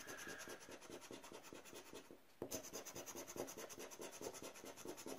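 Scratch card being scraped with a flat scraper: fast, even back-and-forth strokes rubbing off the latex coating, faint. There is a short pause about two seconds in, then the scraping goes on.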